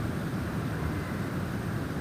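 Snowstorm wind blowing steadily, a low, even rushing noise with no distinct gusts or chimes.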